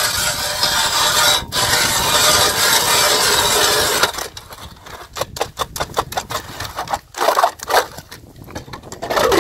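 Hand-cranked ice auger drilling through pond ice, a steady grinding scrape of the blades cutting. It stops about four seconds in, followed by short scrapes and knocks as the auger is worked in and lifted out of the hole.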